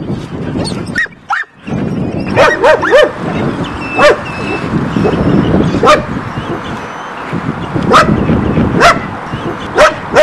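Several Belgian Malinois dogs barking behind a wire fence. Three quick barks come about two and a half seconds in, then single sharp barks every second or two.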